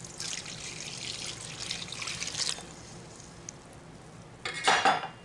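Milk poured from a glass measuring cup into a stainless steel mixing bowl of vanilla pudding mix: a steady splashing pour lasting about two and a half seconds. A short, louder noise follows near the end.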